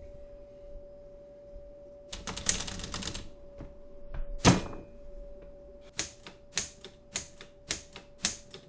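Manual typewriter being typed on: a quick burst of keystrokes about two seconds in, a single loud strike a little later, then slow, separate key strikes, about three a second, near the end.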